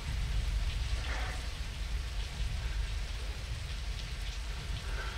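Steady rain falling, over a low steady rumble.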